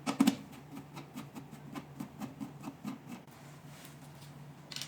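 A sharp knock, then a run of light clicks and rubs as the machine's brackets and screws are handled.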